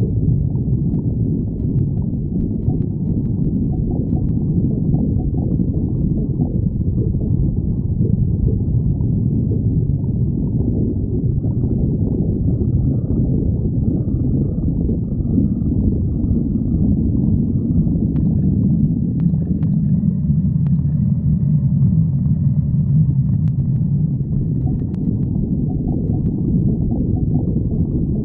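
Human stomach growling: a continuous low rumbling and gurgling that goes on without a break.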